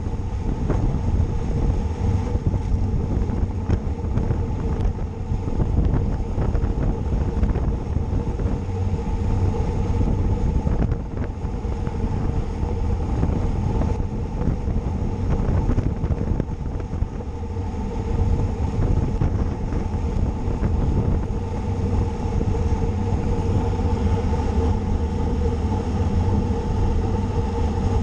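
Wind buffeting the microphone of a camera carried on a racing bicycle at speed, a steady rushing with a faint hum underneath.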